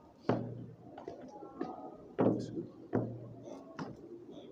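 Boots stamping down on a concrete floor during knee-raise reps: four sharp thuds, a second or so apart, with a man's voice between them.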